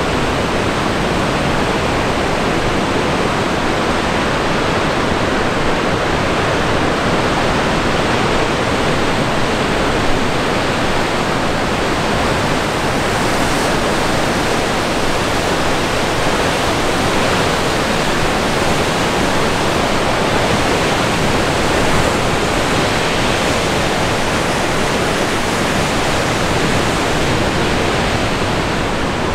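Steady rushing noise of a sea breeze and waves breaking against the sandstone cliffs below, an even roar with no separate swells.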